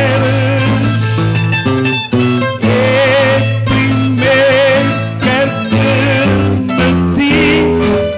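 Folk cantoria ao desafio: a classical guitar and two smaller plucked string instruments play a lilting accompaniment while a man sings a verse over them with a wavering voice.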